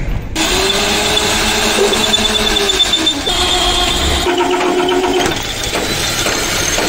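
Heavy electric drill boring through a steel truck chassis rail, the bit squealing in a steady whine that shifts pitch a few times as it cuts.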